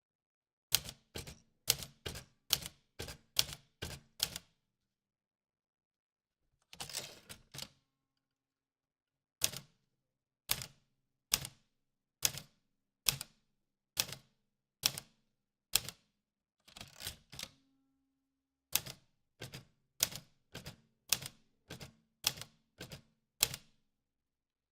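Old manual typewriter being typed on: sharp key strikes in runs of several, a few a second, broken by pauses, with two short denser flurries of clatter along the way.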